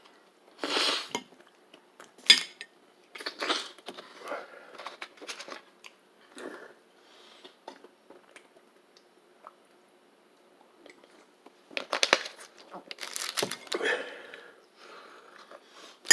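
Cutlery scraping and clinking against a plate in scattered short bursts, with a quiet stretch in the middle.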